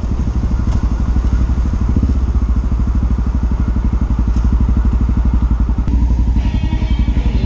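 Honda XR650L's single-cylinder four-stroke engine running steadily under way, its exhaust pulses an even throb. A hiss above the engine cuts off about six seconds in.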